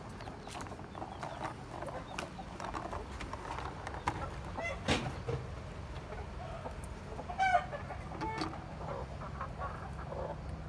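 Chickens clucking in the coop, with two louder calls, one about five seconds in and a short, sharper one about seven and a half seconds in. Light clicks and rustling come from eggs being handled in a straw-lined nest box.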